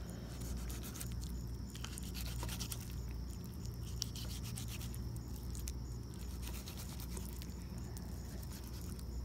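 Fillet knife scraping and cutting catfish meat off the thin skin against a wooden board, a run of small scratchy strokes over a steady low hum.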